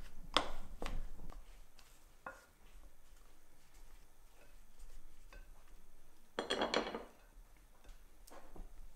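A spatula stirring and pressing a thick cooked dough in a glass bowl, with scattered knocks and scrapes against the glass. The loudest cluster of scraping comes about six and a half seconds in.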